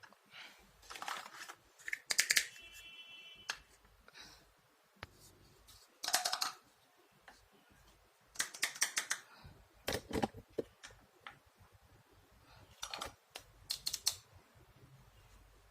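Small plastic toy kitchen pieces and their packaging being handled: irregular bursts of clicks, taps and crinkly rustles, with a duller knock about ten seconds in.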